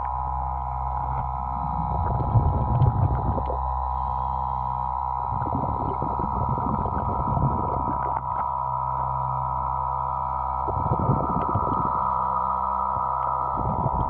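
Muffled underwater sound through a submerged camera: a steady hum of several tones, with low rushing surges every few seconds and scattered clicks and scrapes as hands work shells loose from the rocks.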